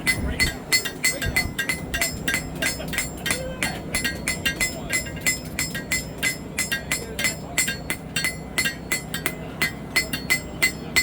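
Hand hammer striking a hot steel blade on an anvil in quick, steady blows, about four a second, each with a bright metallic ring. The edge is being hammered up and down the blade to straighten out a downward bend.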